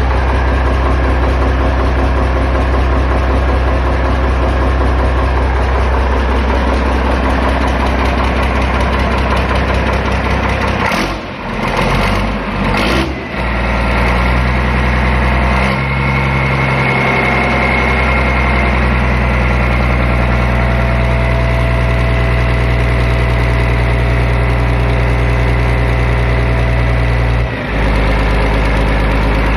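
Yanmar 6KHA-ET six-cylinder marine diesel engine running steadily. Its sound dips briefly twice about eleven to thirteen seconds in and once near the end, settling each time into a slightly different steady note.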